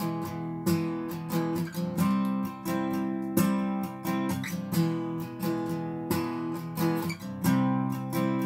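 Acoustic guitar strummed in a steady rhythm, each stroke followed by ringing chord tones.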